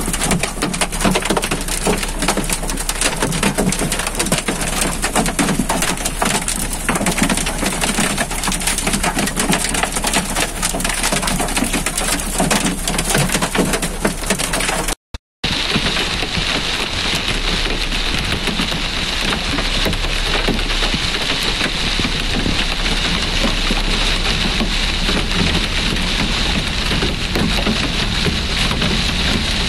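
Hail drumming on a car's roof and windscreen, a dense clatter of countless small impacts heard from inside the car. About halfway through, after a short break, it gives way to heavy rain and hail falling in the open, a steadier hiss.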